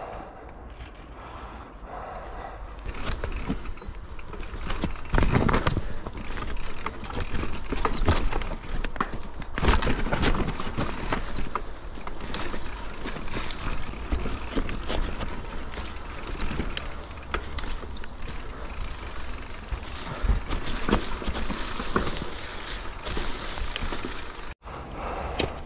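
Mountain bike clattering down a steep, rocky trail, its tyres knocking over rocks and roots and its chain and frame rattling, with heavy knocks about 5 and 10 seconds in. Heard through a GoPro's microphone.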